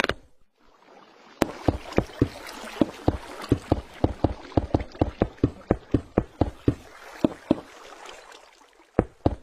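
Rapid, regular knocks or thumps, about four a second, pausing briefly near the end and then starting again.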